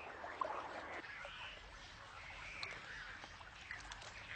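Birds calling faintly: a few short, bending cries a second or so apart.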